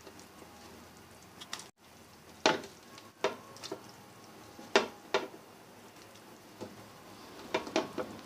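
Pieces of steamed besan (gram-flour) roll are dropped one at a time into boiling broth, each landing with a short splash. There are about eight or nine splashes spaced a second or so apart, over the steady bubbling of the broth.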